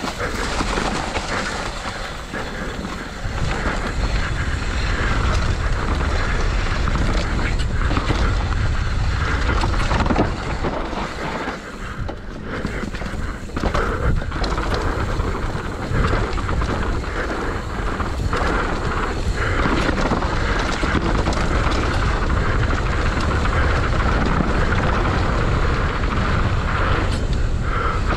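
Mountain bike running fast down a dirt trail: a steady rush of wind on the microphone over knobby tyres rolling on dirt, with many short knocks and rattles as the bike hits bumps.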